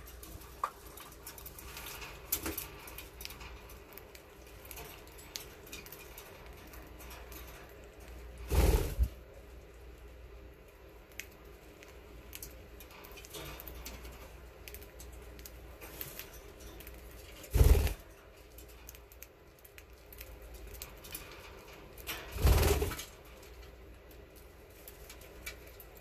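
Budgerigars pecking seed from an open hand: a run of small clicks and cracks from the beaks on the seed. Three louder, brief thumping rustles come about nine, eighteen and twenty-two seconds in.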